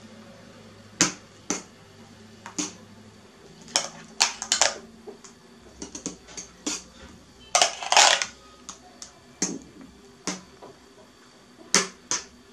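A spoon clicking and tapping against the springform pan and bowl as whipped cream is spread over a cake, in about fifteen sharp, uneven knocks, with one longer scrape about eight seconds in.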